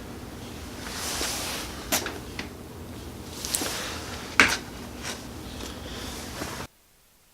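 Handling noise in a small room: a few sharp clicks and knocks over low background noise, the loudest about two seconds in and again past four seconds. The sound cuts out to silence near the end.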